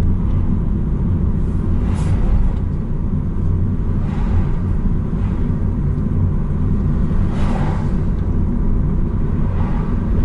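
Steady low road rumble of a car driving at speed, heard from inside the cabin, with two brief whooshes about two and seven and a half seconds in.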